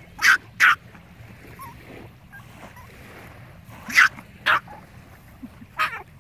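Yorkshire terrier giving five sharp, high-pitched barks: a quick pair at the start, another pair about four seconds in, and one more near the end. It is demand barking, to get its frisbee thrown.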